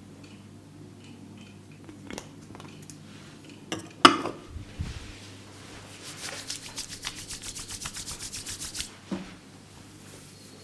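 Hands working on the head during an Indian head massage: a sharp crack about four seconds in, then a fast, even run of taps, about eight a second, for under three seconds.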